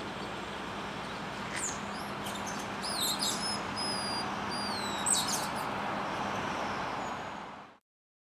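Steady hum of city traffic with a run of short, high whistled chirps, some gliding up or down in pitch, from about a second and a half in until about five seconds in; the sound fades out near the end.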